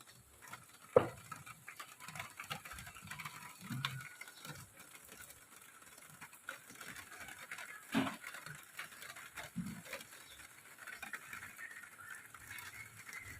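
Rain falling, with drops tapping irregularly on a surface; a sharper tap comes about a second in and another about eight seconds in.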